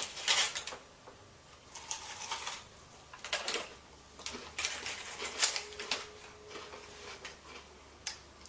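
Crisp, irregular crunching of a rice bubble Christmas crackle being chewed, short dry crackles at uneven intervals.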